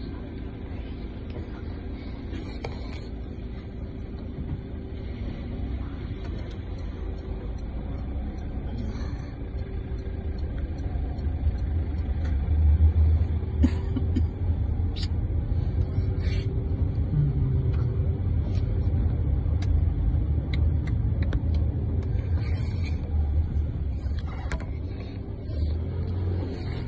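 Car engine and road rumble heard from inside the cabin, a steady low drone that grows louder about halfway through as the car gets moving.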